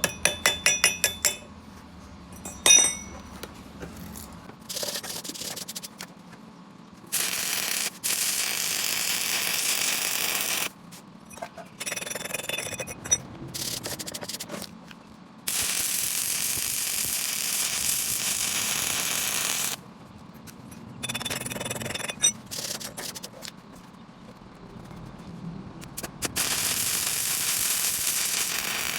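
Stick welding arc crackling and hissing in several runs of a few seconds each, stopping and restarting between them. A quick series of ringing metal taps comes in the first second or so.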